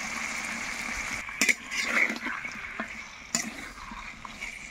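Chicken pieces sizzling in hot oil and spice paste in a metal kadai, with a metal spatula clacking and scraping against the pan as it stirs them, a few sharp knocks from about a second and a half in.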